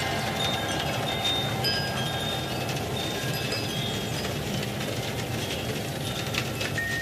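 Wind chimes ringing: short, clear high notes at several different pitches, struck at irregular moments, over a steady low rushing background.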